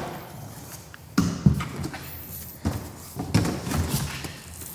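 A few dull knocks and thumps, like things being handled or set down.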